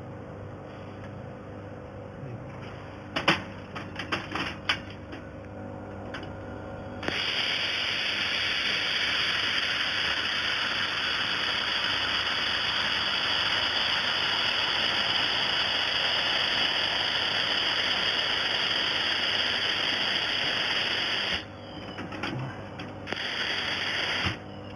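1500 W fiber laser welder welding 2.5 mm aluminium: a few clicks and knocks, then a loud steady hiss that switches on abruptly, runs for about fourteen seconds and cuts off sharply, followed by a second, shorter burst near the end.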